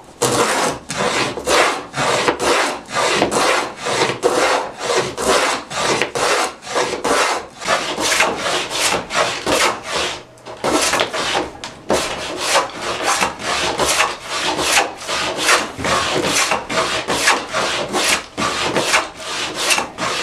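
Wooden molding plane cutting a profile along the edge of a board, in rapid repeated strokes, about two or three a second, each a rasping hiss of the iron taking a shaving, with a short break about halfway.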